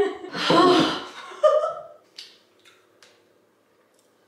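A woman's voice laughing and exclaiming for about two seconds, then a few faint clicks over a low steady hum.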